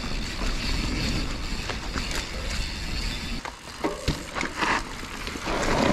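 Mountain bike running downhill on a dirt and dry-leaf forest trail: steady wind rush on the microphone with tyre noise from the ground. About three and a half seconds in this gives way to a run of clicks, rattles and short scrapes from the bike over rougher ground.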